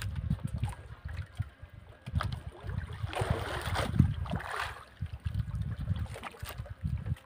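Water lapping and sloshing against the hull of a wooden outrigger fishing boat, with wind gusting on the microphone; a short rush of splashing water about three seconds in, lasting nearly two seconds.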